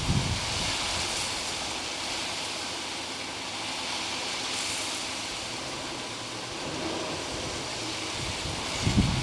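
Steady rushing background noise, with a low thump at the start and another about a second before the end.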